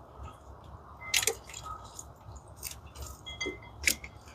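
Engine wiring harness being handled and pushed into place: irregular plastic clicks and rustles of the wires and connectors, two close together about a second in and the loudest near the end.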